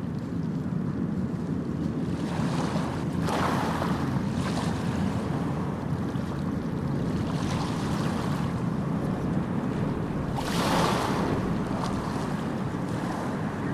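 Sea waves breaking and washing in over a steady low rumble, with louder rushes of surf about three seconds in and again about ten and a half seconds in.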